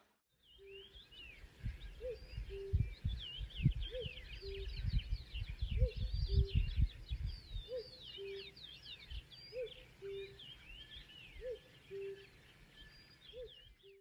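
Birds singing: many quick high whistles and chirps, with a low two-note hooting call, a higher note then a lower one, repeated about every two seconds. Low rumbling thumps come and go in the first half.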